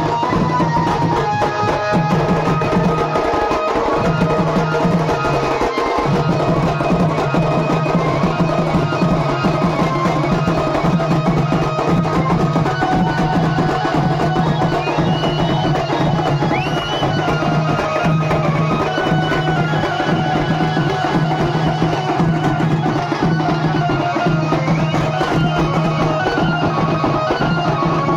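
Fast, dense drumming from a procession drum band's barrel drums and snare drums. A steady droning note and a higher melody line run over the beat without a break.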